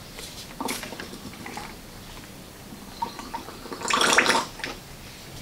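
Oil mixture squirting and spluttering out of an oil filter test manifold's exit pipe onto a paper plate as a large syringe forces it through the filter, with a louder splutter about four seconds in as the syringe empties.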